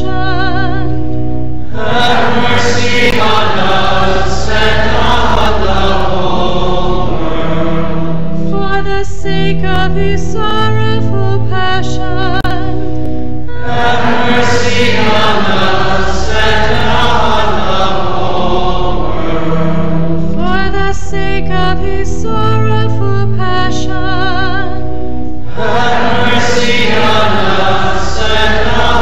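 Choir singing a slow sacred hymn over long-held low accompanying notes, in phrases that pause every several seconds.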